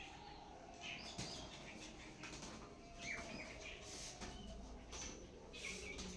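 Country chickens feeding on boiled rice, heard faintly as scattered short pecking and scratching sounds with a brief chirp about three seconds in.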